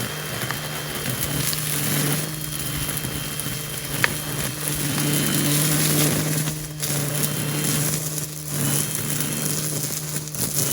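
Small petrol engine running at a steady speed, with a loud hiss over it that drops out briefly a few times.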